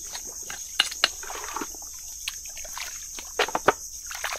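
A metal probing rod knocking on buried shellfish in soft mangrove mud, giving a few sharp clicks: two about a second in and two more a little past the middle. A wet sound of hands working the mud comes between them, over a steady high insect drone.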